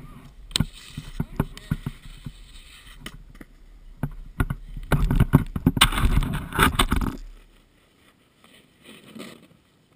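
Skis or a snowboard sliding over packed snow, picked up by an action camera's microphone: scattered knocks and clicks, then a loud scraping rush as the rider skids to a stop, cutting off about seven seconds in.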